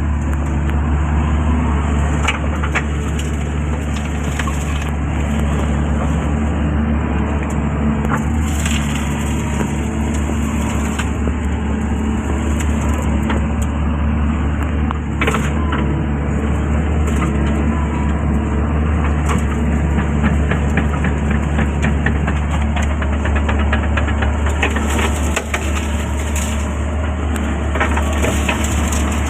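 Excavator's diesel engine running steadily under load, with scattered sharp cracks and snaps throughout.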